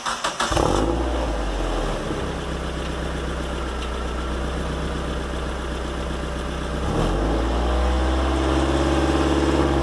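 Mazda Miata NB2's four-cylinder engine catching on a cold start and settling into a fast idle, heard through a JEGS turbo-style muffler. About seven seconds in the revs rise a little and the exhaust gets louder.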